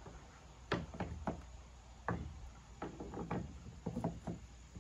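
About ten light, irregular knocks and clacks as a strap is threaded through the carry handles of a plastic fishing kayak, with the handles and strap tapping against the hull.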